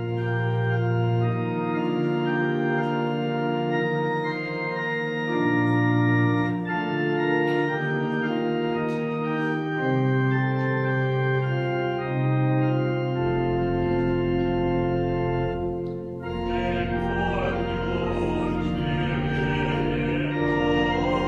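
Organ playing slow, held chords, the chords changing every second or two; a deep bass line comes in partway through and the sound grows fuller near the end.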